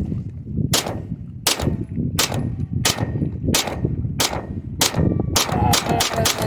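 A semi-automatic 9mm pistol fired in a steady string, about one shot every 0.7 s, with shots coming quicker and closer together near the end. Wind buffets the microphone underneath.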